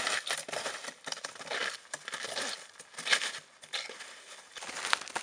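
Snowshoes crunching through snow in a steady walking rhythm, with one sharp click near the end.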